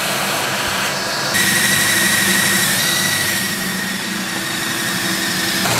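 A vacuum runs steadily at a hose held beside the bit, and from about a second and a half in a cordless drill runs at a steady high whine, boring a pilot hole into the top of a diesel fuel tank.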